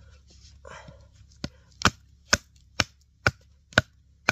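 Sharp wooden knocks, about two a second, seven in all starting about a second and a half in, as the JXE JXO Cavalry knife is batoned through a knotty stick of frozen hardwood.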